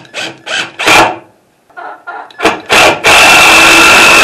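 A few short knocks and scrapes on wood, then about three seconds in a power drill starts suddenly and runs steadily and loudly with a fixed whine, to drive screws into a loose perch board.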